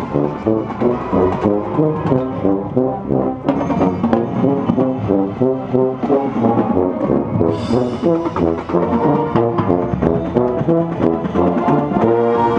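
Drum corps brass line playing a loud ensemble passage in rhythmic chords, with a marching tuba close by carrying the low part.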